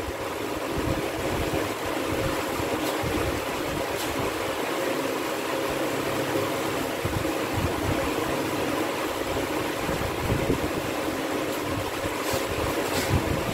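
Steady rushing room noise, with a few faint light taps.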